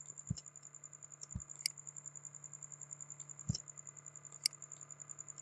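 Computer mouse button clicks, one about a second and a half in and another near the end, as a table border is pressed and dragged. Under them are a few low thumps, a steady low electrical hum and a fast, faint high-pitched ticking.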